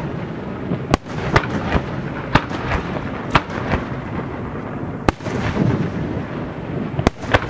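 Aerial fireworks shells bursting: about seven sharp bangs at uneven intervals, two close together near the end, with a steady low rumble between them.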